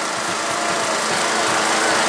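Steady hubbub of a large outdoor crowd, with faint voices in it.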